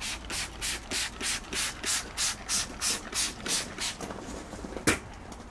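Trigger spray bottle pumped rapidly, about three quick hissing squirts a second, soaking freshly applied mastic in a brick expansion joint before it is tooled. The spraying stops about four seconds in, and a single sharp click follows near the end.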